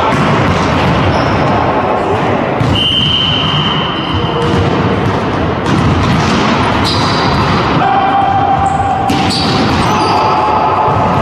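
Indoor volleyball rally in a large sports hall: the ball being struck, sneakers squeaking on the wooden floor, and players' voices amid a constant echoing hall din.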